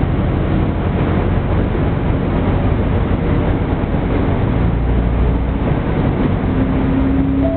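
Diesel railcar running along the track, heard from inside the passenger car: a steady rumble and rushing noise, with a low steady tone coming in about six seconds in.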